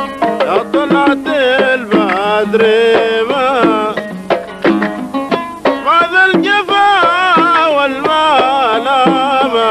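Omani sawt music: an oud playing with small mirwas hand drums beating a steady rhythm, and a wavering, ornamented melody line over them.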